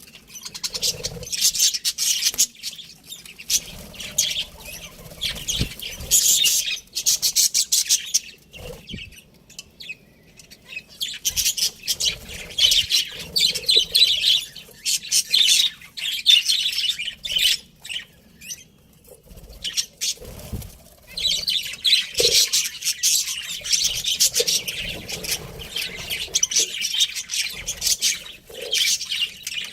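Budgerigars chirping and chattering in rapid, high bouts, with short pauses between the bouts.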